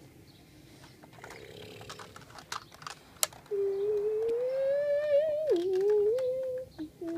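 A child's voice humming an imitation engine noise for about three seconds from midway, the pitch climbing slowly, then dropping suddenly and wavering. Before it, light clicks and taps of toy cars being handled, with one sharp click just before the hum starts.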